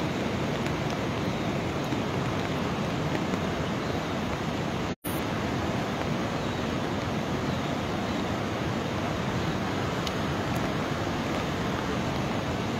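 Steady rushing of a swollen river in flood, its water risen after what is taken to be a cloudburst upstream. The sound cuts out completely for a moment about five seconds in.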